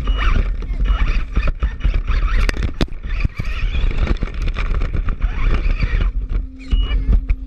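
Brushless electric RC car running over rough ground, heard close up: constant rattling, knocks and jolts over a heavy rumble, with a steady motor whine coming in near the end.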